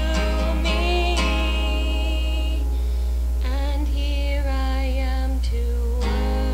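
A woman singing a slow worship song to her own acoustic guitar, with some notes held long. A steady low hum runs underneath.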